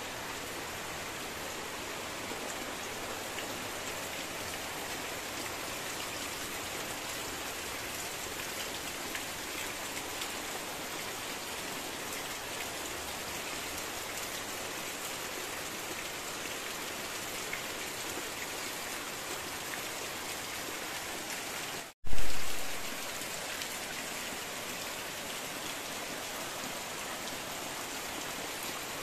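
Heavy rain falling steadily on foliage and earth, an even hiss. About three-quarters of the way in, the sound cuts out for an instant and comes back with a loud low thump that fades within a second.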